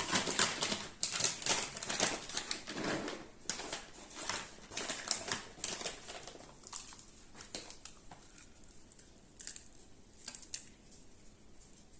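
Rustling and small clicks as chopped walnut pieces are handled and scattered over a frosted carrot cake. The clicks are busy for the first half, then only a few.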